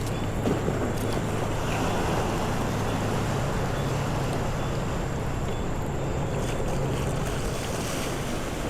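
Steady wash of wind and surf on the microphone, with a low motor hum underneath that steps up slightly in pitch about three seconds in.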